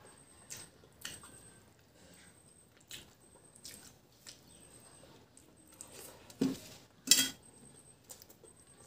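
Fingers mixing rice and curry on a steel plate: soft squishing and scraping, with scattered sharp clicks against the metal, the loudest about seven seconds in, and some chewing.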